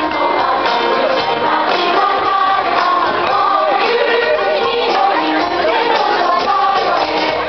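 Music with singing from a stage PA system.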